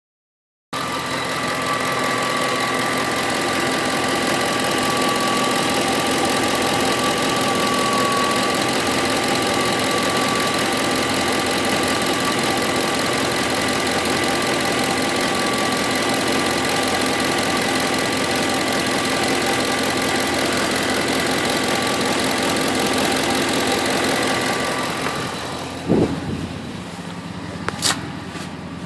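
2008 Ford F-150's 5.4-litre Triton V8 idling with a fast, steady ticking from the engine, a new tick whose cause the owner cannot pin down. The engine sound drops away near the end, followed by two sharp knocks.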